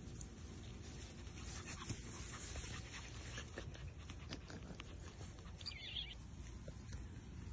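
A cockapoo puppy playing in grass, heard as rustling and handling noise with scattered soft clicks over a low steady rumble. A brief high-pitched squeak comes about six seconds in.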